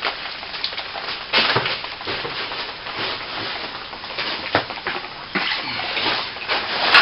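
A wet brush splashing and scrubbing water into cracks in lath-and-plaster, in irregular strokes, wetting them down before render goes in.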